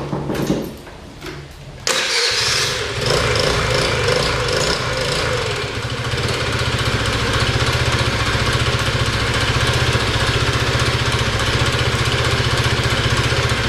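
Tao Tao Evo scooter engine starting about two seconds in, revving unevenly for a few seconds, then settling into a steady idle.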